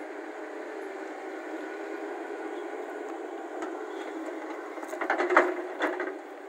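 Hyundai 220LC hydraulic excavator's diesel engine running steadily. About five seconds in, a few sharp knocks and a scrape as the bucket strikes and digs into the dirt.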